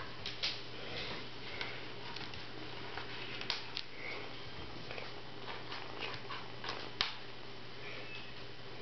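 Light scattered taps and scratches of a kitten's paws and claws on a wooden tabletop and a plastic sleeve as it plays with a cord, with a few sharper clicks, the loudest about seven seconds in, over a steady low hiss.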